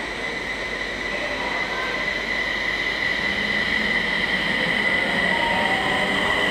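E721-series electric train pulling away from the platform and passing close by. A steady high motor whine rides over the rumble of the wheels, getting louder as the cars come alongside.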